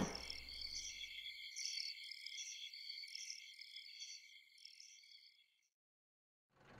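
Crickets chirping at night: a faint, steady high trill with pulsing chirps about twice a second, cutting off suddenly about a second before the end.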